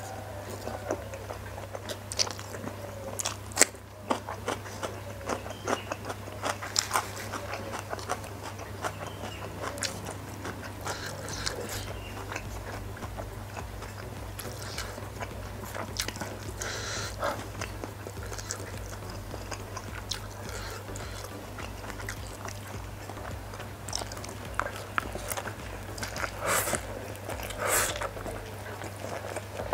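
Close-miked eating: chewing and mouth clicks as a man eats instant noodles, with a few hissy slurps of noodles, the last ones near the end. A steady low hum runs underneath.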